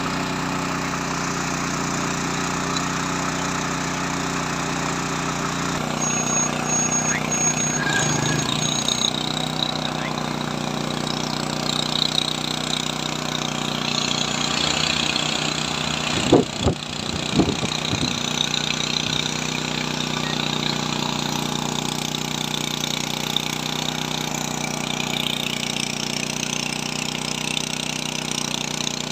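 Small petrol engine, likely the generator charging the drone batteries, running steadily. Its note shifts slightly about six seconds in, and a few short knocks come around the middle.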